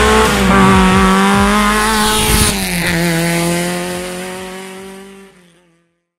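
Rally car engine at high revs as the car comes down the stage and passes, its pitch dropping sharply about two and a half seconds in. The sound then fades away over the last couple of seconds.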